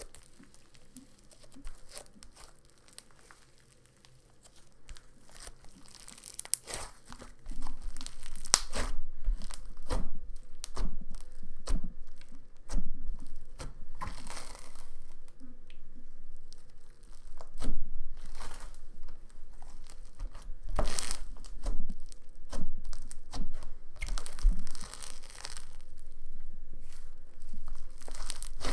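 Cloud dough slime packed with styrofoam balls being stretched, pulled and squished by hand, giving fizzy crackling and tearing sounds. It is faint for the first several seconds, then much louder from about seven seconds in.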